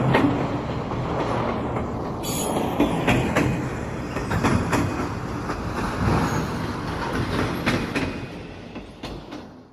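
Train running on rails: a steady rumble with scattered wheel clacks, fading away near the end.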